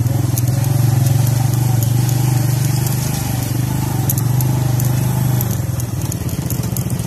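Motorcycle engine running steadily under way, heard from the bike itself, with a fast even pulse and scattered light clicks, easing off slightly near the end.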